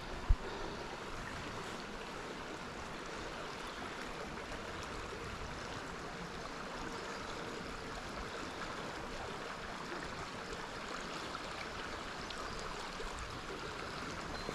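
Small river's water running steadily over a shallow riffle. One sharp click just after the start.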